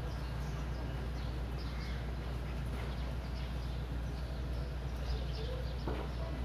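Birds chirping in short scattered calls over a steady low rumble.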